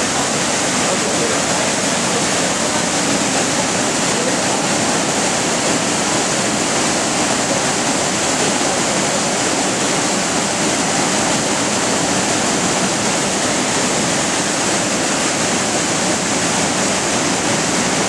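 Waterfall pouring into a plunge pool: a steady rush of falling water.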